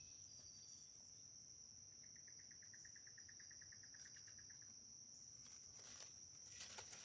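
Faint insect chorus: a steady high-pitched buzz throughout, with another insect trilling in quick, even pulses, about ten a second, for a few seconds in the middle. Light rustling near the end.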